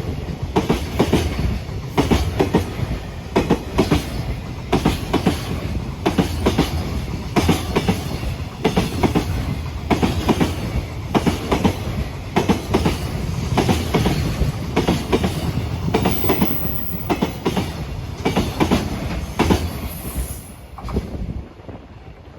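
Long freight train rolling past, its wheels knocking over the rail joints in a steady clickety-clack. A brief high squeal comes near the end, and the sound then fades as the last wagons clear.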